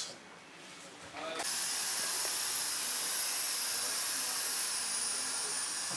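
A steady high hiss starts suddenly about a second and a half in. A faint thin whistle rides on it and slowly drops in pitch.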